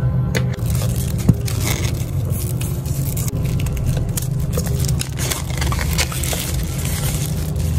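Plastic packaging crinkling and scraping as it is handled and torn open, a dense run of sharp crackles, over a steady low hum.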